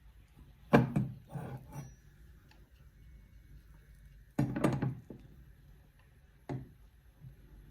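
Kitchen things being handled and set down, with no talking: a sharp knock under a second in, a softer one just after, a longer clatter around the middle, and a short knock near the end.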